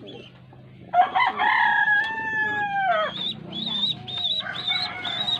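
A rooster crowing once, a long call of about two seconds that starts about a second in and drops in pitch at the end. High, wavering chirps repeat after it.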